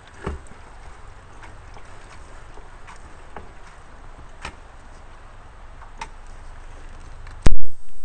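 Scattered light knocks over a faint low rumble, then one loud thump close to the microphone near the end.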